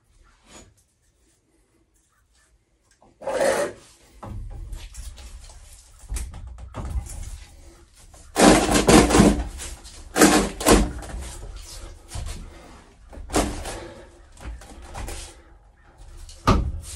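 Plumbing pipe and fittings being handled and worked on: irregular rubbing and scraping with knocks, starting about three seconds in.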